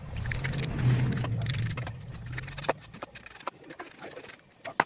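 A broad kitchen knife chops and scrapes through a large fish on a wooden cutting board, giving a string of sharp, uneven knocks. Over the first three seconds a low engine hum swells and then fades.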